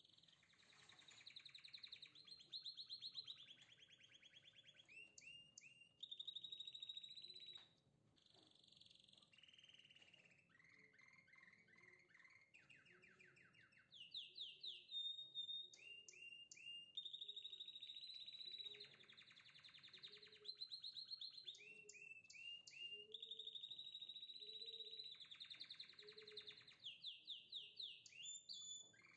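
A songbird singing quietly: rapid chirps and trills in long, varied phrases with short pauses between them.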